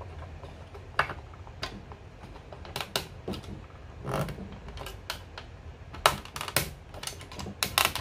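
Hard plastic toy base panels clicking and knocking against each other as a deck section is worked into its slots: scattered sharp clicks, then a quick run of clicks in the last two seconds as the panel goes into place.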